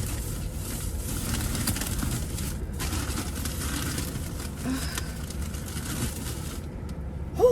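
Car cabin noise while driving: a steady low road and engine rumble, with a short pitched vocal sound near the end.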